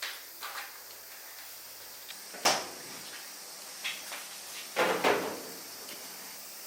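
Indoor handling knocks and clacks, like a drawer, cupboard or door being worked, over a steady faint hiss. The sharpest knock comes about two and a half seconds in, and a longer clatter about five seconds in.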